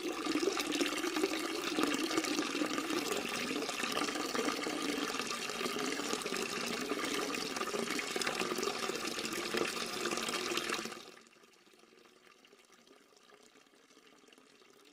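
Liquid pouring into a glass, a steady splashing fill that stops about eleven seconds in.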